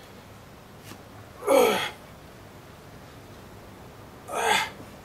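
A man's forced breaths in time with one-arm kettlebell lifts: two short, loud exhalations about three seconds apart, each falling in pitch. This is the hard breathing of a man working through a kettlebell set.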